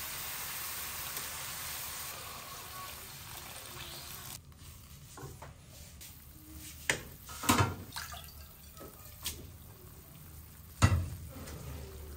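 Water poured from a pot into a hot wok of stir-fried vegetables and chicken, hissing steadily, stops abruptly about four seconds in. After that a wooden spatula stirring in the wok knocks against the pan a few times, loudest near the end.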